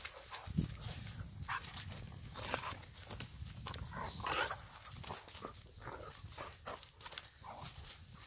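Two Jindo dogs play-fighting, with several short vocal noises amid scuffling and crunching on snow.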